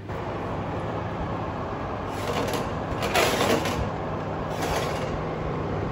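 A metal baking tray clattering and scraping onto a wire oven rack, three short clanks about two, three and four and a half seconds in, the middle one loudest, over a steady whirring hum.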